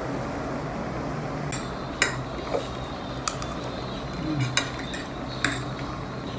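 Metal fork and spoon clinking against a ceramic plate while eating: about five sharp, separate clinks, over a steady low hum.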